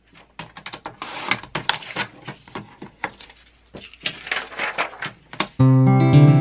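Fiskars SureCut A4 paper trimmer in use: clicks and short swishes as the cutting head is slid along its rail through sheets of printed pattern paper and the pages are moved about. Acoustic guitar music starts near the end.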